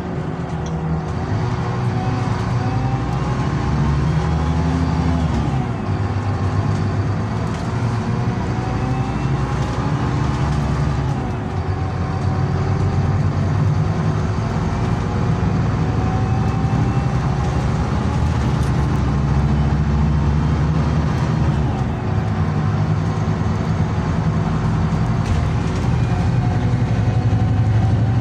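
A Scania Citywide LE city bus heard from inside the passenger cabin while driving: engine and road noise, with the engine note rising and falling several times as the bus accelerates and shifts, and a faint rising whine. A steady hum of one pitch runs underneath.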